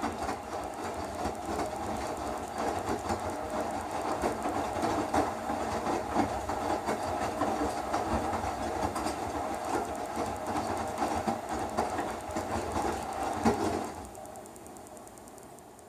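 Electrolux Eco Turbo TRW12 washing machine running mid-cycle, its motor and drum working with a steady rattling and knocking. About 14 seconds in the motor stops and the sound falls away to a fading hum.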